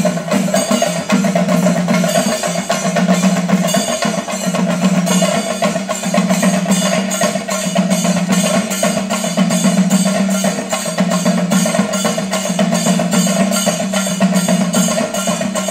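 Chenda drums played with sticks in fast, continuous temple drumming with a steady pulse, the accompaniment to a theyyam dance.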